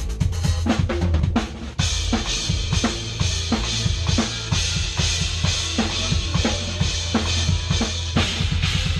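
Rock drum kit played live and hard: quick bass drum and snare hits over a continuous low bass, with a cymbal wash coming in about two seconds in.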